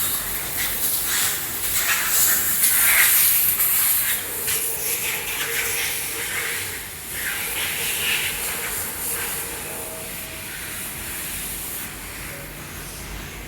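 Compressed-air paint spray gun hissing in uneven bursts, loudest in the first half and growing fainter toward the end.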